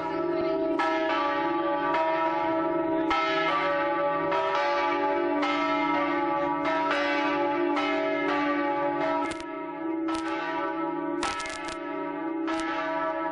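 Large bronze church bells of St Mark's Campanile ringing, heard up close in the belfry. A strike comes about once a second, each leaving a long humming ring of several steady tones, and the strikes grow sharper and brighter near the end.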